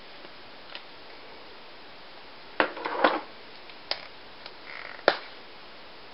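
Hard plastic clicks and taps of alcohol markers being handled: caps pulled off or pressed on and markers set down on the table. There are about five sharp clicks, the loudest about three and five seconds in.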